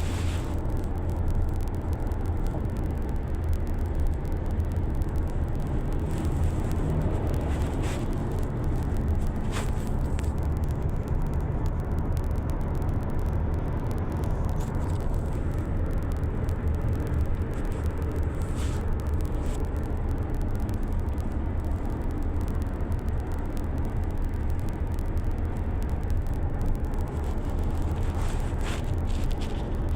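Steady low vehicle rumble with road noise, like a motor vehicle driving, with a few faint ticks.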